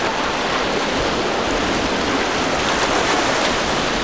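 Steady rush of choppy sea and breaking surf, mixed with the wash of a small boat's hull and wake cutting through the waves.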